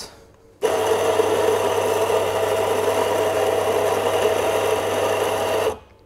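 Anfim SP2 commercial espresso grinder's motor running and grinding coffee beans into a dosing cup for about five seconds, starting a little way in and cutting off cleanly. It is a test grind at a coarser setting of 8 on a new grinder whose burrs are being seasoned.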